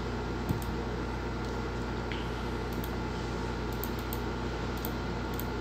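Computer mouse clicking once about half a second in, with a few faint ticks after it, over a steady hum and hiss.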